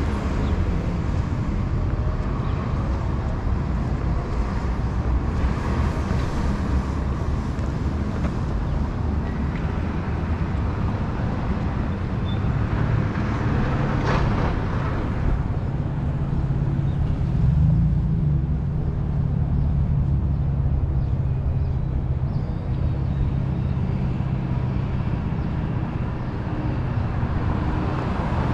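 City street traffic: steady noise of cars going by, one passing closer about halfway through, then a vehicle engine's low steady hum through the second half.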